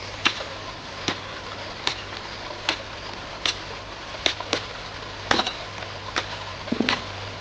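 A series of sharp knocks at a fairly steady pace, roughly one a second, over a low steady hum.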